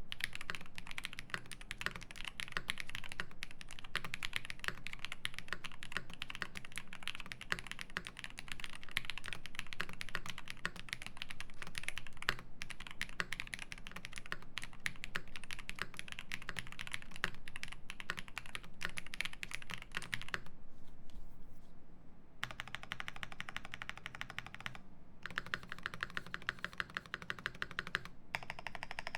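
Fast typing on a Phase One mechanical keyboard with lubed Zaku switches, an aluminium plate and GMK Noire keycaps: a dense run of key clacks. About 20 seconds in there is a short pause, then a faster, more even rattle of key presses.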